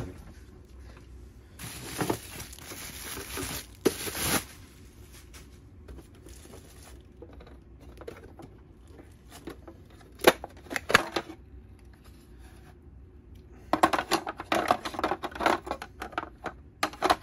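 Bubble-wrap packaging being torn and pulled off a hard plastic box, a rustling rip from about two seconds in with a sharp tear near four seconds. Later, clicks and knocks of the plastic box being handled and opened, with a busier run of rustling and tapping near the end.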